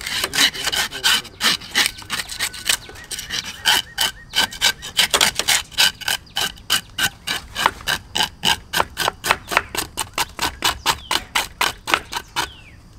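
Handheld metal fish scaler scraped rapidly along a fish's side, rasping off the scales in short strokes about four a second, stopping near the end.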